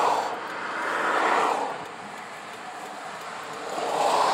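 Passing cars going by, heard from inside a pickup's cab: a road-noise whoosh that swells and fades three times, once at the start, again just over a second in, and once more near the end.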